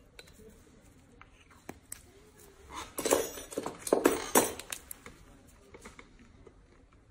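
Handling noise from gloved hands swapping tools: a flurry of rustles and knocks lasting about two seconds, starting about three seconds in, loudest around the fourth second.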